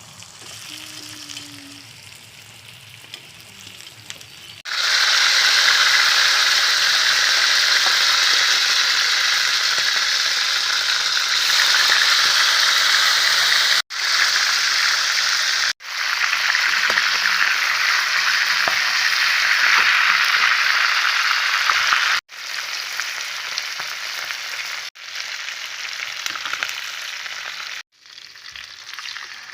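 Chicken frying with a steady sizzle, fainter for the first few seconds and much louder from about five seconds in. The sizzle is broken by several abrupt cuts where clips are joined.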